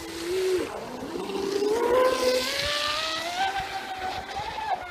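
Electric motor of an RC catamaran running on a 6S LiPo pack, whining as it accelerates. The pitch dips briefly about half a second in, then climbs steadily for several seconds, with a rushing hiss through the middle.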